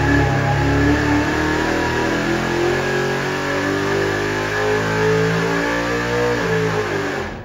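406 cubic-inch small-block Chevy V8 with a solid-roller camshaft running hard on an engine dyno, its pitch drifting slowly upward. The sound cuts off abruptly near the end.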